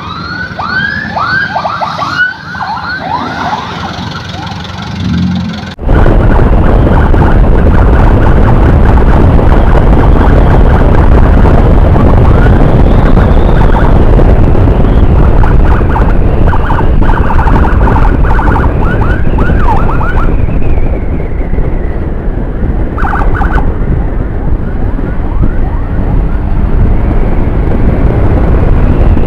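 Electronic emergency siren yelping in quick repeated rising sweeps. About six seconds in the sound cuts suddenly to loud wind rush and road noise on a motorcycle helmet camera at speed, with the siren yelping faintly through it now and then.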